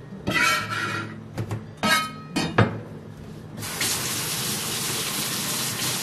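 Kitchen knife chopping green onions on a cutting board, a few uneven knocks, then the kitchen faucet turned on about three and a half seconds in, water running steadily over an eggplant held under it.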